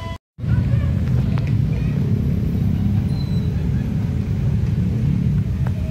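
A brief dropout right at the start, then a steady low rumble of road traffic.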